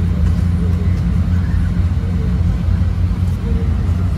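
Steady low rumble of a vehicle heard from inside it, with faint voices in the background.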